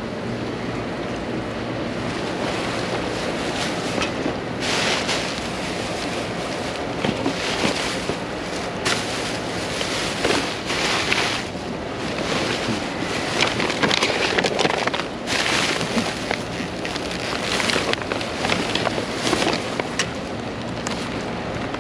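Steady rush of wind and rain on the microphone during a tropical storm, with irregular louder gusts and bursts throughout.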